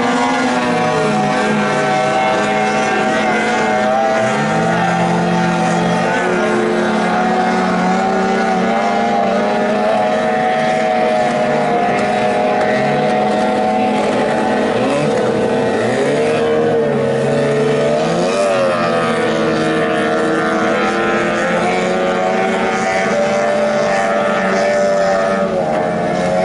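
Several 15 hp outboard motors on racing boats running at high revs, their overlapping engine tones at different pitches, some rising and falling as boats pass.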